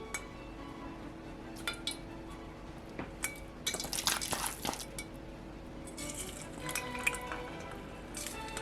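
Kitchen utensils clinking against dishes, with a short splashing liquid sound about four seconds in, over quiet background music.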